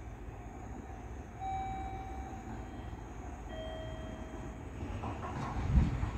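A JNR Class DE10 diesel-hydraulic locomotive hauling a train approaches the platform. Its low rumble grows louder near the end with a heavy thump. Two faint held tones sound in the middle, one after the other.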